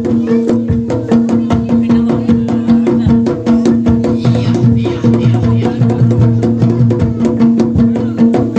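Traditional Javanese percussion music for a bantengan dance: rapid drum and wood-block-like strokes, about five or six a second, over steady held ringing tones.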